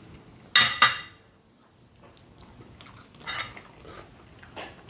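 Cutlery clinking twice, sharp and quick, against a ceramic plate about half a second in, followed by softer eating noises at the table.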